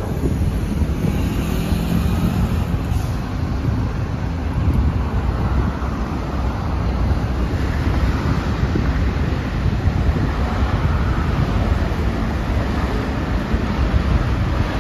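Steady road traffic on a busy city avenue: cars and buses driving past.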